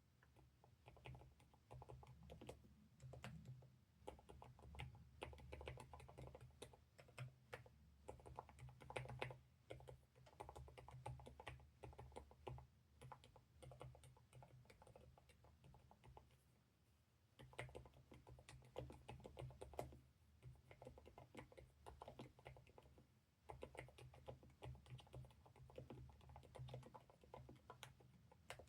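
Typing on a NuPhy Node 75 low-profile mechanical keyboard: a quick, irregular run of light key clicks, with a pause of about three seconds midway.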